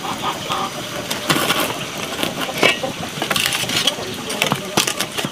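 Wood fire crackling and popping, with a few louder metal knocks as a cast pot is set down on the iron trivet over the flames.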